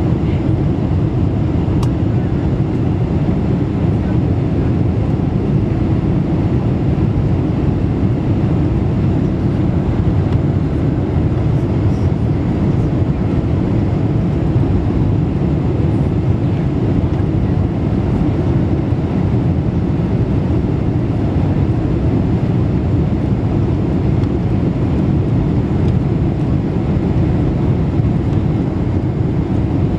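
Steady cabin noise inside a Boeing 747-400 on final approach: engine and airflow rush, a dense low rumble that holds even.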